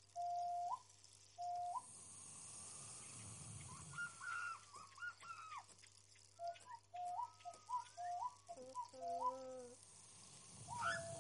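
A string of short animal-like calls: whines and yelps, several holding a tone and then jumping up in pitch, with quicker bending calls in between.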